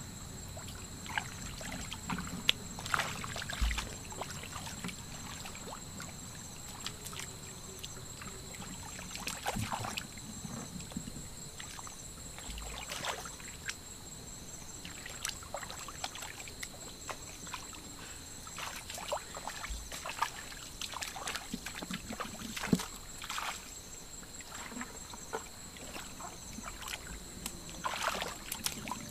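Hands sloshing and splashing in shallow muddy water while groping in the mud for fish: irregular small splashes, a few louder than the rest, over a steady high-pitched tone.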